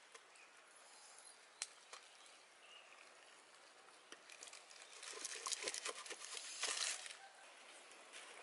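Dry leaves rustling, with a few light clicks and knocks, as a metal cooking pot gripped in dry leaves is handled and set on a small wood fire. The rustling is busiest for a couple of seconds just past the middle.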